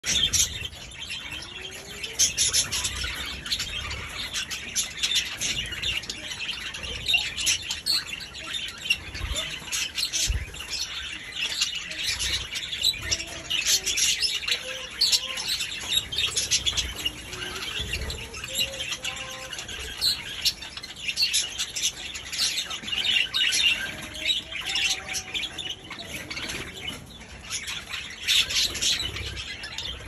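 Budgerigars chattering: a steady stream of many short chirps and squawks with no pause.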